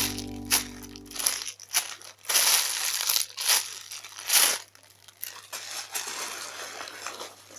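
Close crinkling and crunching handling noise in irregular bursts, the loudest about two and a half and four and a half seconds in, while background music fades out in the first second and a half.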